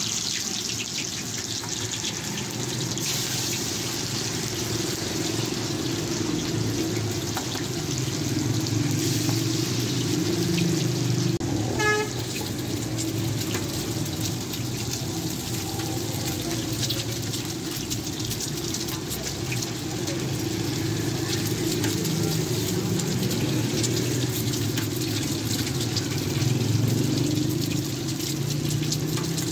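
Chapli kebabs and eggs frying in shallow oil in a wide flat pan: a steady crackling sizzle over a low rumble. A short horn toot sounds about twelve seconds in.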